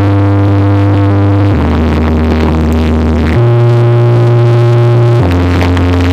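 Electronic dance track played loud through a car sound system, with long held synth bass chords that change about every two seconds and no beat.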